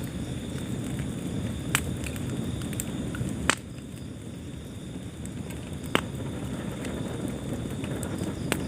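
Wood fire crackling: a steady low rumble of burning with four sharp, separate pops spaced a couple of seconds apart, the loudest about three and a half seconds in.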